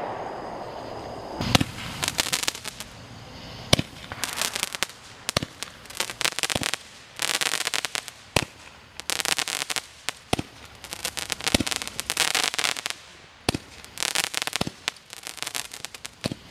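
Consumer aerial fireworks going off. A hiss at the start gives way to a sharp bang every second or two, each followed by a dense crackling of bursting stars.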